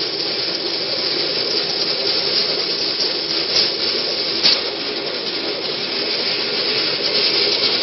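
Velorail rolling along the track: a steady rushing rumble of small steel wheels on rail, with scattered light ticks and a sharper click about four and a half seconds in.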